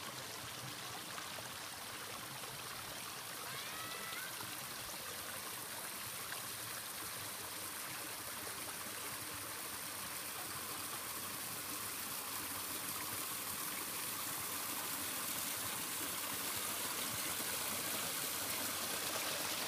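A small stream running and splashing over sandstone rocks, a steady rush of water that grows gradually louder toward the end.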